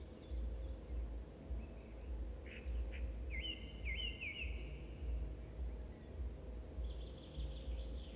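Faint bird chirps, a short run of quick rising-and-falling notes about three to four seconds in, over a low steady rumble.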